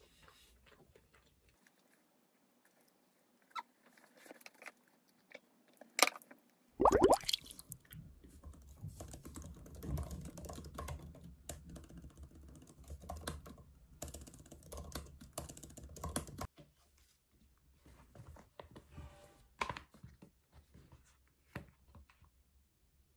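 Typing on a laptop keyboard: two sharp knocks, then irregular runs of key clicks for about ten seconds, thinning to scattered clicks near the end.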